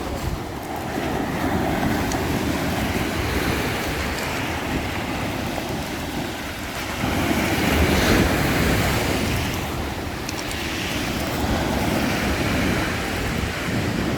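Black Sea waves breaking and washing on the shore, with wind buffeting the microphone; one wave surges loudest about seven to nine seconds in.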